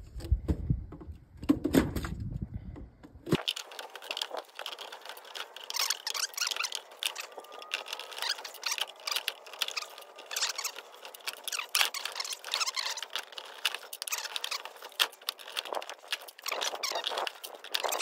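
Cut copper windings from a washing machine motor being pried out with a screwdriver and dropped into a bucket: a dense run of metallic clinks, rattles and scrapes. About three seconds in the sound turns thin, its low end cut off suddenly.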